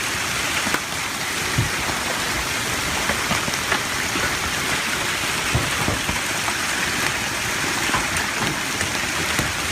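Heavy storm rain pouring steadily onto a vehicle, with scattered sharp knocks of objects striking it.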